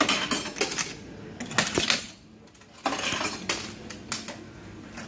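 Repeated clinks and clatters of hard objects, like crockery and cutlery being handled, with a brief lull in the middle.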